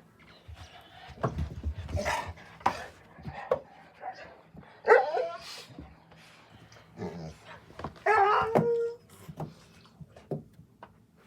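A household pet crying indoors: a short rising call about five seconds in and a louder held call lasting about a second near eight seconds in, among scattered knocks and clicks.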